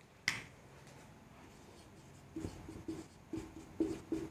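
Marker pen writing on a whiteboard: a run of short, squeaky strokes, roughly two a second, starting a little past halfway. A single brief click comes about a quarter second in.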